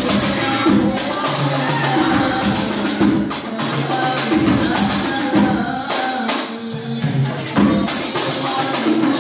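Seated group percussion music: a frame drum with jingles beaten in a fast, steady rhythm, with the performers' voices chanting along.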